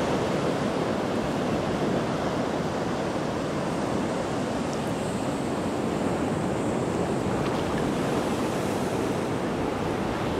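Steady rush of ocean surf along a sandy beach, mixed with wind on the microphone.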